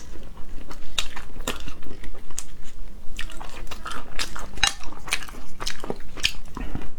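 Close-up eating sounds: biting, chewing and crunching into the meat of a spicy rabbit head, with irregular sharp wet clicks and crunches.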